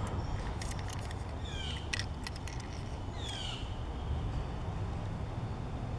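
A bird calling: two short falling chirps about a second and a half apart, over a steady low rumble. A few light clicks in the first two seconds come from the hands handling a small plastic-and-metal toy truck.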